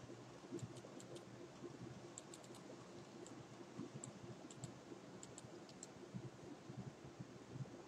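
Faint, scattered light clicks of a computer being worked, some in quick runs of two to four, over a low steady hum.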